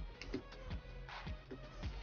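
Quiet background music with a steady beat.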